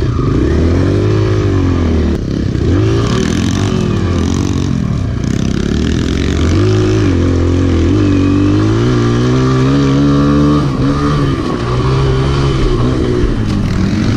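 Kawasaki KLX pit bike's small four-stroke single-cylinder engine being ridden hard, revving up and down through the corners, with its pitch rising and falling every second or two and a longer climb in pitch about halfway through.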